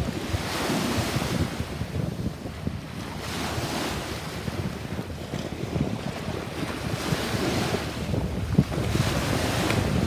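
Small sea waves washing in and out at the shoreline, the wash swelling and fading several times, with wind buffeting the microphone.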